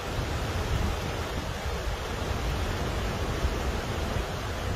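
Steady rushing noise of a flooded storm scene: wind buffeting the phone's microphone in a deep, fluttering rumble over an even hiss of rushing water.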